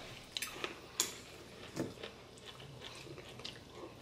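Close-up eating sounds: people chewing pasta, with a few short sharp clicks of cutlery on a ceramic bowl.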